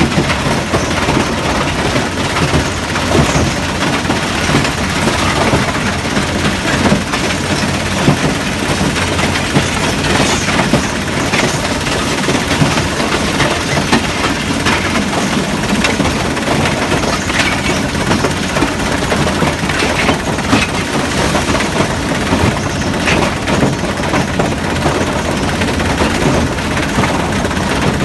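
Giporec Giga 150 rubble-processing machine at work: stones and concrete chunks clatter and knock constantly over its steel deck, over the steady drone of the running machine.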